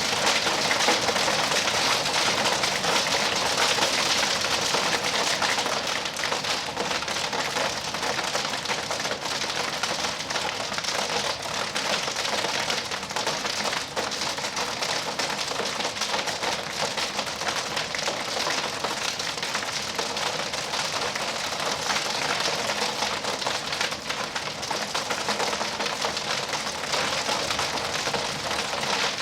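Hail shower: hailstones and rain falling steadily, a dense rattle of countless small, hard hits on surfaces.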